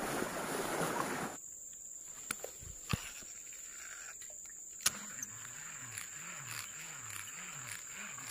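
Fast, shallow river water rushing over a riffle, cutting off after about a second and a half to a much quieter stretch with a few sharp clicks. A steady high thin whine runs underneath, and in the second half a faint low warbling sound rises and falls about twice a second.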